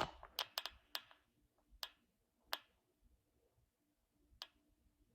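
A handful of faint, sharp clicks at uneven intervals: a few close together in the first second, then single clicks spaced out, the last about four and a half seconds in.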